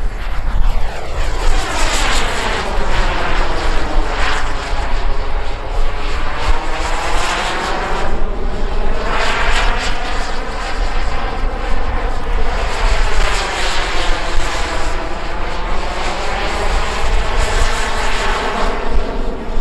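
Twin-turbine radio-controlled model jet, a Skymaster Su-30, flying aerobatics overhead with a continuous jet-turbine roar. The sound sweeps down and back up in a hollow, phasing whoosh several times as the jet passes back and forth.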